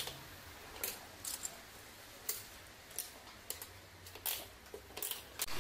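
Irregular sharp clicks and knocks, about a dozen of them, from hard ceramic floor tiles being handled and set.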